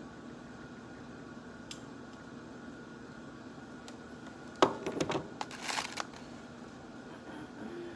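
Steady background hum, broken about halfway through by a sharp knock and then a second or so of clattering and rustling as objects are handled.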